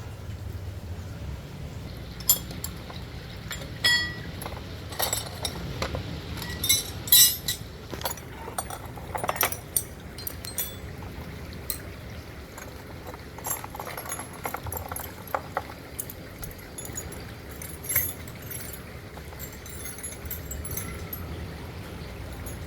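Small hard objects clinking and knocking in irregular clicks, over a low steady rumble.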